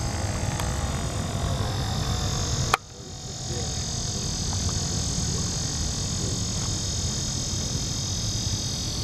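Pond-side ambience: a steady high drone of insects with frog calls, over low wind rumble on the microphone. A sharp click and a brief drop in level come just under three seconds in.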